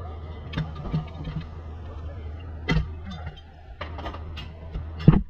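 Scattered metallic clicks and knocks from a socket and extension being worked on a bolt of a car's rear suspension, the loudest knock just before the end, over a steady low hum.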